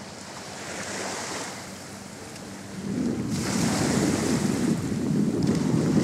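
Small sea waves washing onto a sandy beach. From about three seconds in, wind buffets the microphone with a loud low rumble over the surf.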